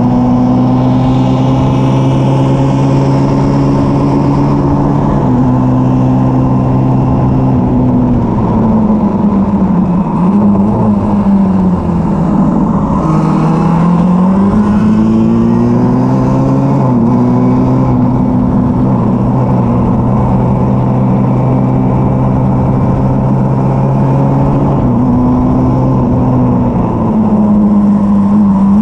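Formula Junior race car's engine heard onboard, running hard under load. Its pitch steps down about five seconds in. It then falls for several seconds to a low around twelve seconds as the car slows for a corner, climbs back as it accelerates out, and shifts in steps again near the end.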